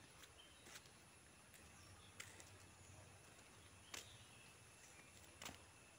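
Near silence, broken by four faint, short clicks spread through it.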